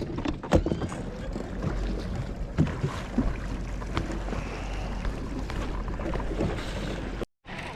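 Boat on the water, a steady low hum with a few light knocks. The sound cuts out briefly near the end.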